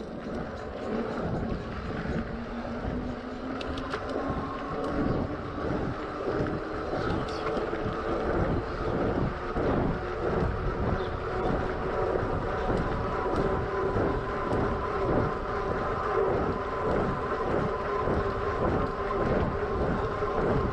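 Electric bike's 300 W motor whining under hard acceleration, its pitch rising over the first few seconds and then holding steady, over a rough, pulsing rush of fat tyres and wind on the microphone.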